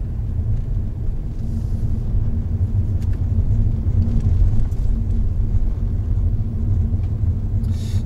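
Honda Odyssey RB3 minivan driving along: a steady low rumble of road and engine noise.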